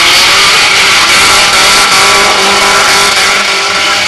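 Car engine held at high, steady revs while the rear tyres spin and screech in a burnout, a loud continuous hiss over the engine note.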